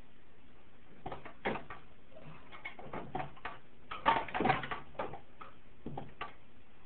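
Hand tools clinking and knocking as they are handled in a tool chest drawer: scattered clicks, with a quick cluster of clanks about four seconds in as the loudest.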